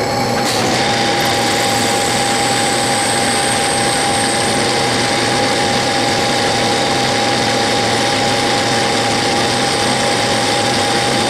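Metal lathe running under power while a cutoff tool feeds into the spinning steel bar, squaring and undercutting a shoulder. The sound is a steady mechanical running noise with gear clatter and a steady whine.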